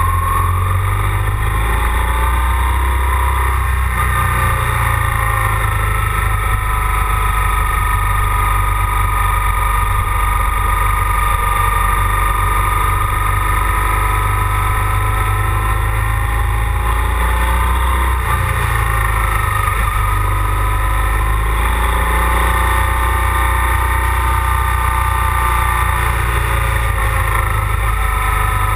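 BMW GS boxer-twin motorcycle riding along winding road, engine pitch slowly rising and falling with the throttle through the turns, over a steady low wind rumble on the bike-mounted camera.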